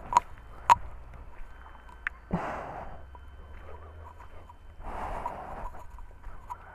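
Footsteps on rubble and a person breathing hard near the microphone, in a few half-second breaths. Two sharp knocks near the start are the loudest sounds.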